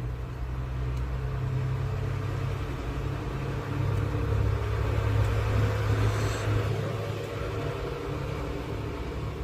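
Steady low mechanical hum, with a faint hiss briefly coming in about six seconds in.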